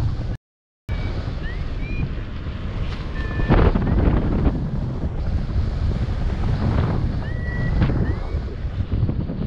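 Airflow of a paragliding flight rushing over the pilot-mounted camera's microphone, a steady wind roar that swells in gusts. The sound drops out completely for about half a second near the start.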